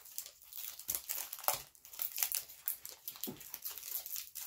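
Foil booster pack wrapper crinkling as the cards are pulled out of it, in a run of irregular crackles.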